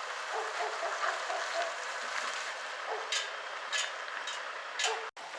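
A dog barking a few times, starting about three seconds in, over a steady hiss.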